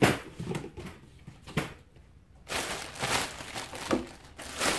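Cardboard box and packaging being handled: a sharp knock at the start, then rustling and scraping with a few knocks about three and four seconds in.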